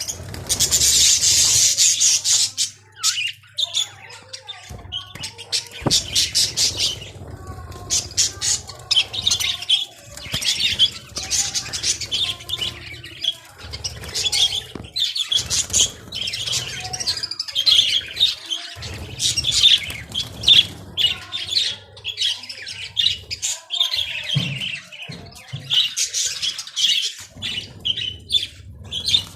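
A flock of pet budgerigars chattering and chirping continuously in rapid, high twittering bursts, the lively chatter the owner reads as contentment while they eat spinach. A low steady hum runs underneath.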